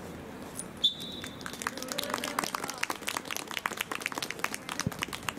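A whistle gives one short, shrill blast about a second in, then scattered hand clapping starts and runs on.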